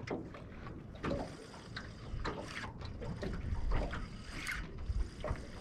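Water lapping and slapping against the hull of a small aluminium boat, with scattered light knocks and splashes.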